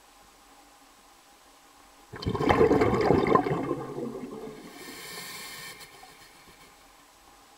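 A sudden rush of gushing water about two seconds in that fades over a couple of seconds, followed by a brief higher hiss.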